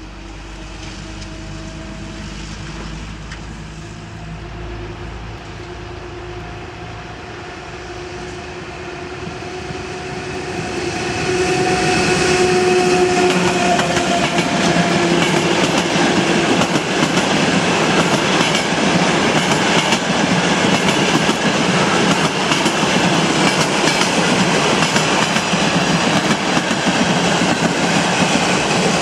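EU07 electric locomotive hauling a passenger train as it approaches, heard at first as a low hum with a few steady tones. About eleven seconds in the sound turns loud as the locomotive and then a long string of passenger coaches roll past, wheels clattering over the rail joints.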